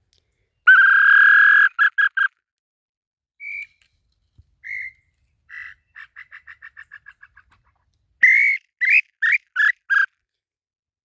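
Loud whistled notes from a tinamou call whistle (pio): one long note and two short ones, then near the end five short notes, each slightly rising. Between them, fainter whistled notes and a quickening run of short notes that fades out, the Tataupa tinamou's answering song.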